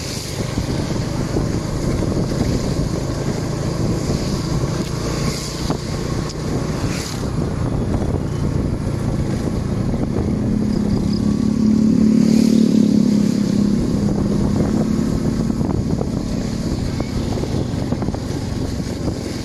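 Motorcycle engine running steadily under way, heard from the pillion seat along with road noise. About halfway through, a louder engine hum swells for a few seconds and fades.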